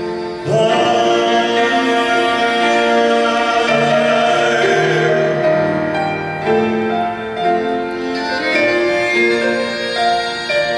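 Instrumental passage of a slow song: a violin playing a melody in long held notes over cello and band accompaniment.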